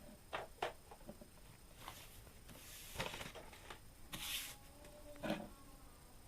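Light handling noises: a few scattered clicks and knocks with two short rustling swishes, like small objects being moved and rubbed.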